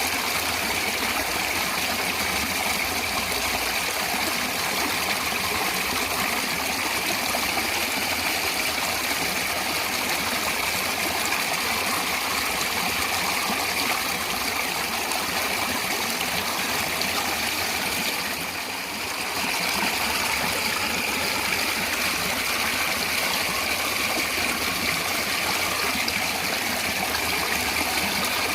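Natural stream water flowing steadily, an even rush of water noise that dips briefly about two-thirds of the way through.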